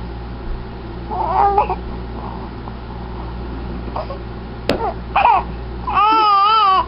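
Dog whining and making warbling, howl-like vocal sounds, ending in one long wavering call near the end. It is the kind of "I love you" talking a dog is coaxed into.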